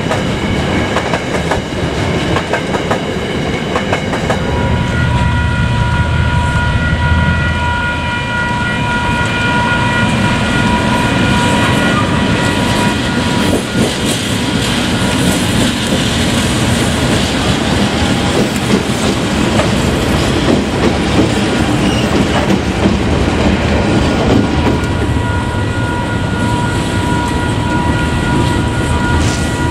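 Freight train passing: coal hopper wagons roll by with the clickety-clack of wheels over the rail joints. Then KiwiRail DX-class diesel-electric locomotives run past, with a steady high whine over the engine and wheel noise.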